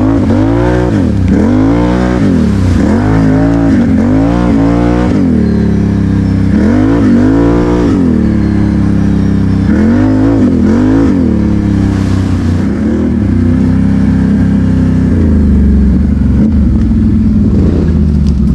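ATV engine revving up and easing off several times in the first eleven seconds, as on a twisty trail, then running more steadily at a lower pitch.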